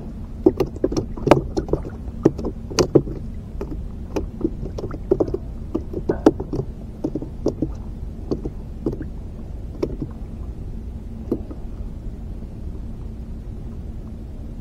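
Irregular small clicks and knocks from a spinning rod and a treble-hooked lure being handled close to the microphone, most frequent in the first part and thinning out later, over a steady low hum.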